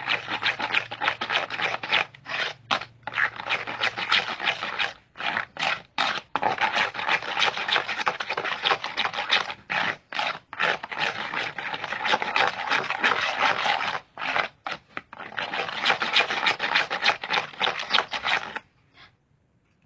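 Continuous rubbing and scraping, broken by several short pauses and stopping suddenly about eighteen and a half seconds in.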